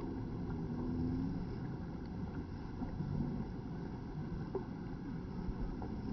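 Steady rush of river water with wind buffeting the microphone, a low rumbling noise without a clear rhythm.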